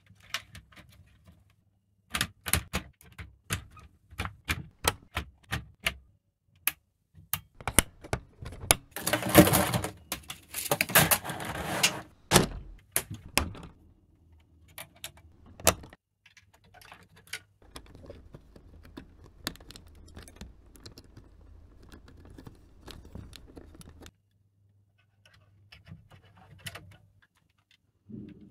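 Plastic LEGO Technic parts being handled and pressed together: a run of sharp clicks, then a dense plastic clatter about eight to twelve seconds in, then scattered, fainter clicks.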